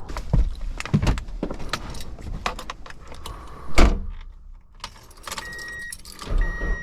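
Keys jangling and clicking while getting into a Mazda Miata, with a car door thudding shut about four seconds in. Near the end the car's warning chime starts repeating about once a second and a low engine rumble starts up.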